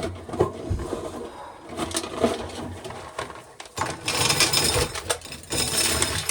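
Corn sheller stripping an ear of dried corn, with scattered clicks at first, then a loud, dense rattle of kernels and grinding from about four seconds in.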